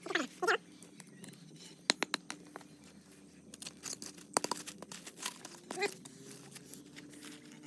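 Short animal whines falling in pitch, twice at the start and once about six seconds in, among scattered sharp clicks and crackles.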